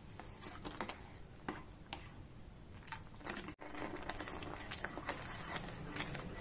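Thick tomato sauce simmering down in a pan, its bubbles popping with irregular soft clicks, while a spoon stirs it and scrapes the pan. The sound breaks off for an instant about halfway through.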